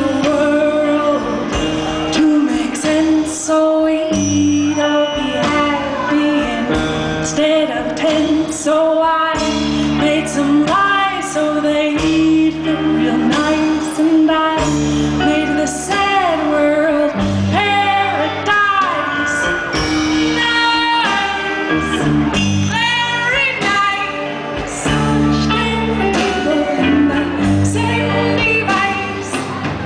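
A woman singing into a microphone over a live band, her voice sliding between notes and holding some, over a bass line that changes note about once a second.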